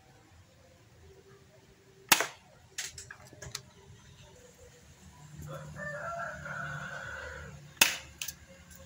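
Two sharp shots from a Hi-Capa airsoft pistol firing metal BBs, about two seconds in and again near the end, each followed by a few lighter clicks. Between the shots a rooster crows once in the background, for about two and a half seconds.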